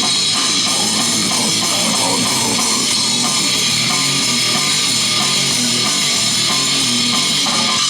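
A heavy rock band playing live at full volume: electric guitar, bass and drum kit in a dense, unbroken wall of sound.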